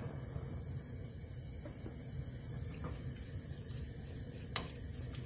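Cubed pork starting to sizzle in a hot stainless steel pot, a steady frying hiss. A wooden spoon knocks once against the pot near the end as the stir-frying begins.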